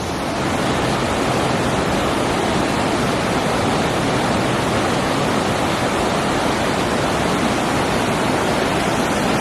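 Mountain creek water rushing steadily, a loud, even sound of flowing water.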